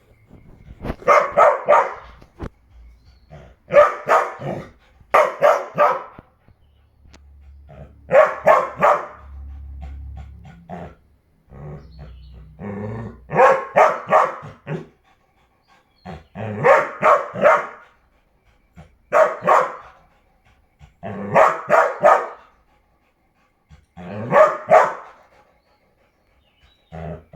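A dog barking in bouts of several quick barks, a new bout every two to three seconds.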